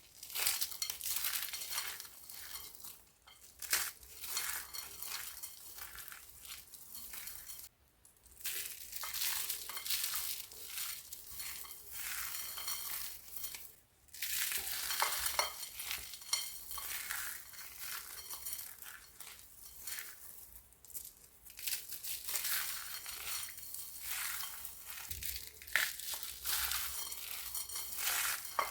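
Dry, crispy soap being crunched: a dense, crisp crackling, with short breaks about 8 and 14 seconds in.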